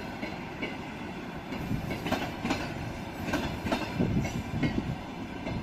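A train of passenger cars rolling past at speed, its wheels clacking over the rail joints again and again over a steady rumble.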